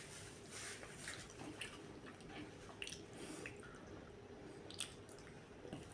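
A person chewing a patty burger close to the microphone: soft wet mouth sounds and smacks, with a few sharper clicks scattered through.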